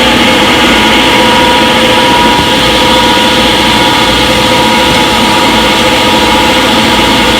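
Front-load washing machine in its spin cycle: the drum spinning at speed with a steady motor whine over a constant rushing hum.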